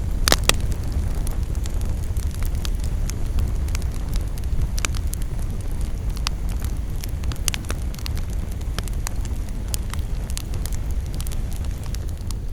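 Campfire burning, with frequent sharp crackles and pops over a steady low rumble; one loud pop comes about half a second in.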